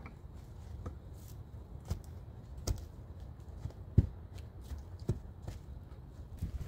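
A series of light knocks and clicks, irregular and about one a second, the sharpest about four seconds in, over a low steady rumble.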